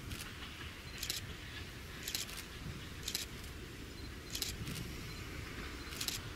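Low, steady rumble of an SM42 diesel locomotive approaching from a distance, with short, high rasping chirps about once a second.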